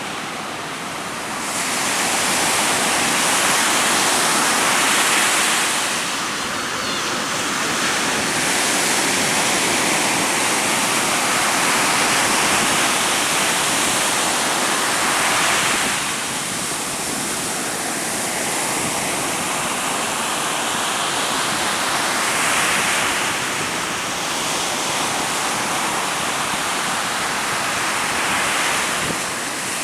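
Ocean surf breaking continuously in long, rushing surges, with strong wind blowing.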